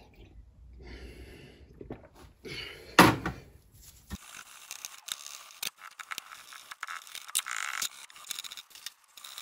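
Kitchen scouring pad scrubbing the aluminium jointing face of a sump clean, a rough scraping with scattered clicks and one sharp knock about three seconds in.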